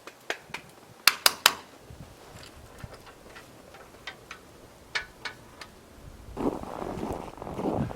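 A scattering of sharp clicks and knocks, the loudest three in quick succession about a second in and a few fainter ones later. Near the end a gusting rush of wind on the microphone comes up.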